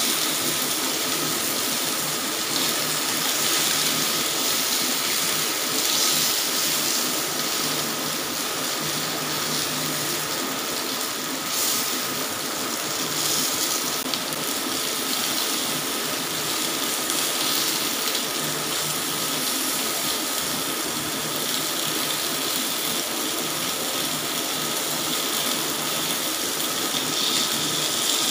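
Chicken pieces sizzling in oil on a hot grill pan, a steady hiss.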